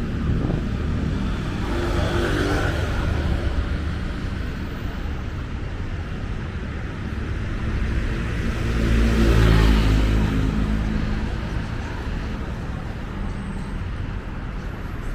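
City street traffic with motor vehicle engines running past. One vehicle passes close and is loudest about nine seconds in.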